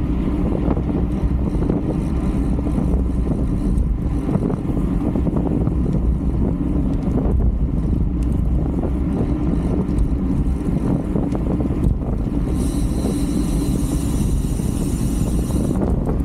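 Wind rushing over the microphone of a camera on a racing bicycle, a steady low rumble at race speed. Near the end a high buzz joins it for about three seconds.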